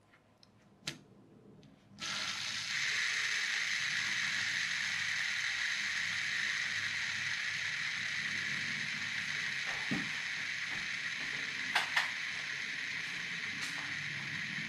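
LED fidget spinner whirring on its 608 ball bearing: set spinning about two seconds in, then running on steadily and easing off only slightly. A single click comes before it starts, and a few sharp clicks sound later.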